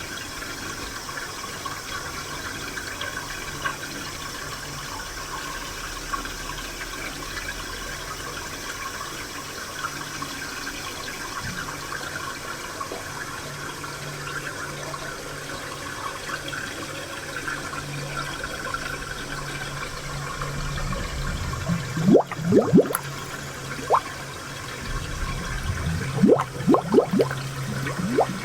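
Spring water running steadily, with two bouts of louder gurgling near the end whose pitch rises quickly, like water filling and bubbling.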